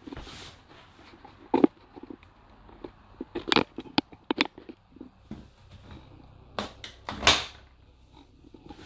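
Scattered knocks and clatter of dishes and dishwasher racks being handled, a few sharp strikes in irregular clusters.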